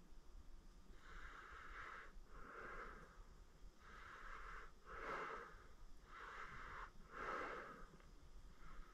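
Faint, slow breathing of a man who is ill, close to the microphone: three breaths, each an in-and-out pair of hisses, then a fainter one beginning at the end.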